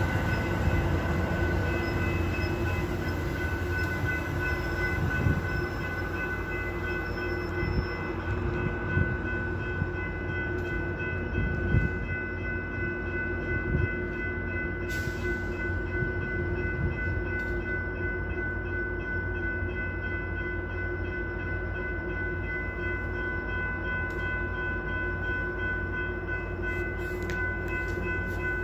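Metra bilevel commuter train standing at the platform: a steady low diesel rumble with a constant high-pitched whine over it. A few knocks come in the first half, and a short hiss about halfway through.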